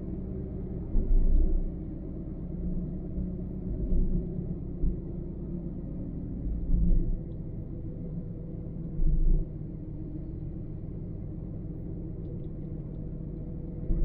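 Car driving on a highway: a steady low rumble of road and engine noise, broken by several brief deep thumps a few seconds apart.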